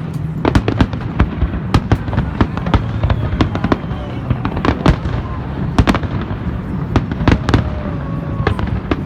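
Fireworks display: a rapid, irregular string of sharp bangs and crackling reports, several a second, over a steady low rumble.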